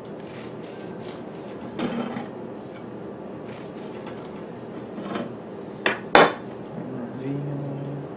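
A long knife sawing through a loaf of zucchini bread on a wire cooling rack, in faint strokes about three a second, with a few sharp clacks of metal on the rack and wooden board. The loudest clack comes about six seconds in.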